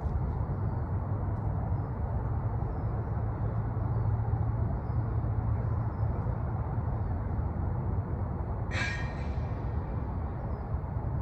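Steady low rumble of urban traffic, with one short high-pitched squeak or chirp about nine seconds in.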